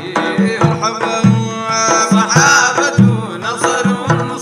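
Sudanese madeeh praise song: a man's voice singing over a repeating hand-drum beat.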